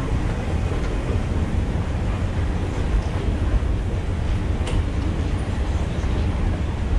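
Steady low rumble of a moving escalator and the underground metro station around it, with a faint click or two.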